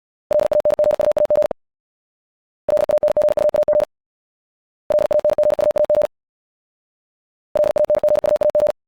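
Morse code sent at 70 words per minute: a steady mid-pitched tone keyed on and off very rapidly, in four bursts of about a second each, with short silences between them.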